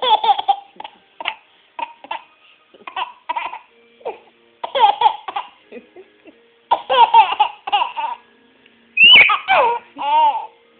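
Baby laughing in repeated short bursts of giggles, with a louder run of laughter about nine seconds in.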